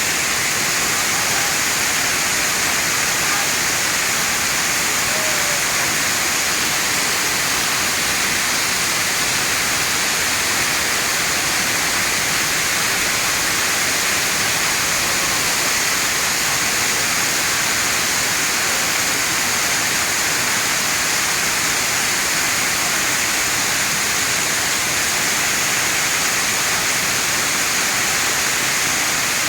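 Waterfall, water rushing and splashing down in a steady, unbroken hiss.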